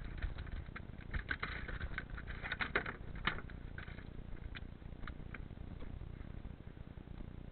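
Clicks, knocks and short rustles of fishing gear being handled aboard an inflatable boat, densest in the first three and a half seconds, then a few scattered clicks, over a low steady rumble.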